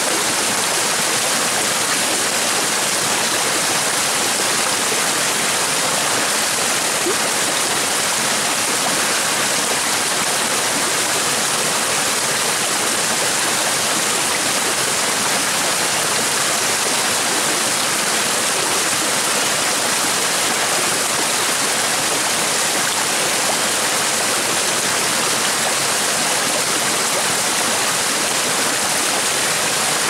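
Small spout of stream water falling over a bank and splashing onto stones in a shallow pool: a steady, even rush and splash of water that does not change.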